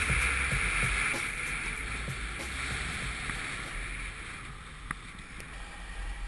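Skis sliding and hissing over groomed snow, with wind buffeting the action-camera microphone. The sound gradually dies away as the skier slows to a stop, and there is one sharp click about five seconds in.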